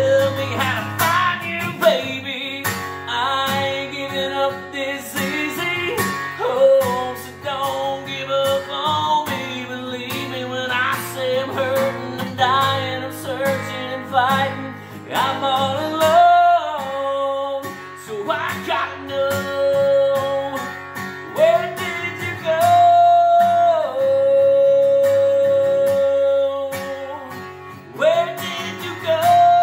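A man singing a slow song while strumming a Takamine acoustic guitar, with long held vocal notes in the second half.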